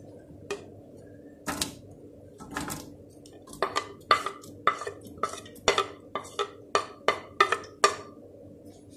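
A metal spoon clinking against a plate and an aluminium pressure cooker as sliced onions are scraped off into the ghee. A few scattered clinks come first, then a quick run of about three a second from about three and a half seconds in until near the end.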